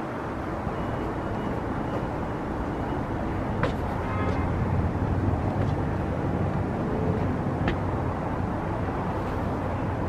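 Steady low outdoor rumble of distant traffic and wind, with two sharp clicks, one a little over a third of the way in and one near three-quarters.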